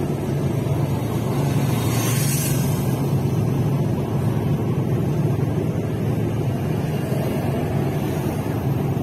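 Road noise inside a moving car at motorway speed: a steady low drone of engine and tyres under a rushing hiss, which swells briefly about two seconds in.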